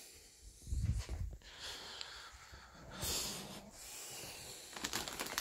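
A sleeping man snoring: a loud, low snort about a second in, followed by breathy exhales. A short crinkling rustle near the end.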